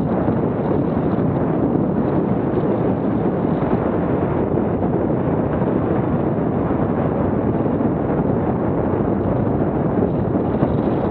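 Steady wind rush on a Garmin VIRB action camera's microphone from riding a mountain bike at about 18 km/h down a dirt trail, with the rumble of the bike and tyres on the ground mixed in.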